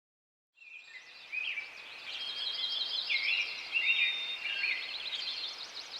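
Songbirds singing over a steady outdoor hiss: several overlapping chirps, trills and short whistled notes, starting about half a second in.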